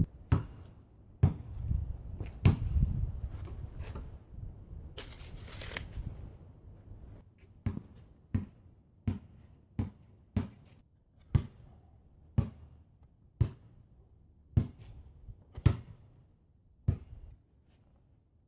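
A series of about eleven dull thuds, a little under a second apart and slowing toward the end, after several seconds of rustling and scraping.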